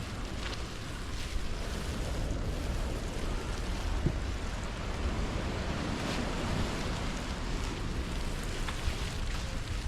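Steady noise of surf on the beach, mixed with wind buffeting the microphone as a low rumble.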